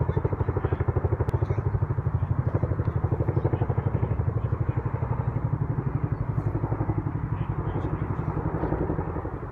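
Boeing CH-47 Chinook tandem-rotor helicopter flying over, its rotors beating in a rapid, even thudding of about ten beats a second, a little fainter near the end.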